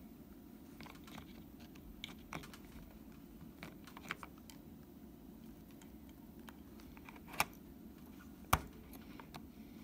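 Light plastic clicks and taps of a Sony NP-BX1 battery being pushed and fiddled at the battery compartment of a Sony FDR-X3000 action camera; it won't slide in because it is the wrong way round. Scattered small clicks throughout, with two sharper clicks near the end.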